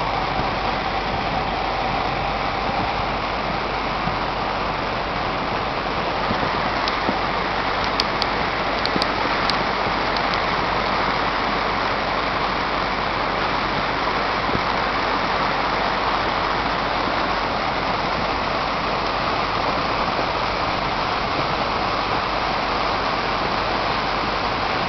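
Steady rush of heavy rain and running flood water around a vehicle, with a few sharp clicks about eight to ten seconds in.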